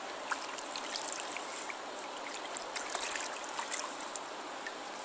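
A river's current running steadily along the bank, an even rushing hiss, with a few faint small splashes and ticks at the water's edge.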